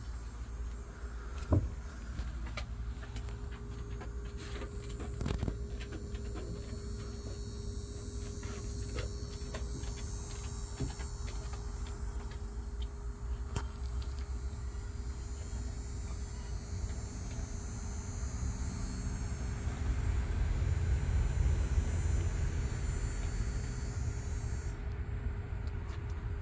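Outdoor background noise: a steady low rumble that swells for a few seconds late on, under a constant faint hum. A thin high hiss cuts off suddenly near the end, and there are a few light handling clicks.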